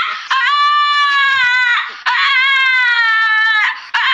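Small black-and-white dog howling in long, high-pitched, scream-like cries, each about a second and a half, with short breaks between them.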